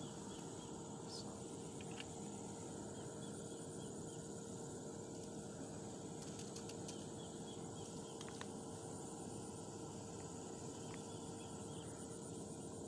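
Faint, steady waterside ambience: a high continuous insect buzz, with clusters of short chirps every few seconds and a few light clicks.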